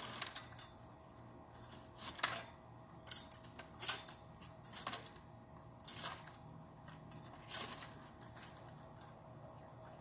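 Hand pruning of tree branches: a string of short, irregular snips and rustles as branches are cut by hand.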